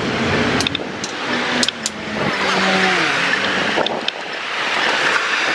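Cars passing on a city street, their tyre and engine noise swelling and fading, with a few short clicks.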